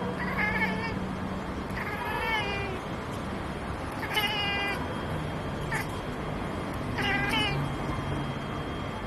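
Domestic cat chirping at a pigeon it has spotted as prey: about five short, wavering chirps, spaced a second or two apart.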